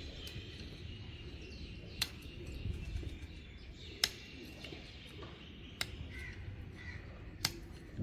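Four sharp clicks, about two seconds apart, from a hoof-trimming tool working on a calf's front hoof, with faint bird calls in the background.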